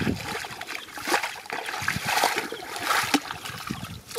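Feet and hands splashing irregularly through shallow muddy water and soft mud, while someone wades and gropes for fish by hand.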